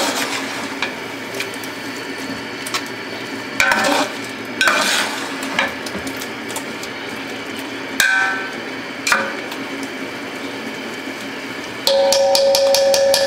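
A long metal spoon stirring and scraping through frying masala in a large aluminium pot, over a steady sizzle. Scattered clanks of the spoon against the pot ring briefly. Near the end comes a louder stretch of rapid scraping and clatter with a ringing tone.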